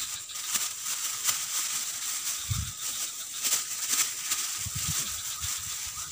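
A thin plastic bag being handled, rustling and crinkling in short, irregular bursts, over a steady high-pitched background drone.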